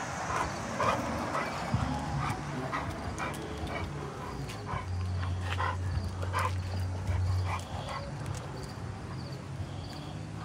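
A dog giving short, repeated yips and barks, roughly two a second, with a low steady hum for a few seconds in the middle.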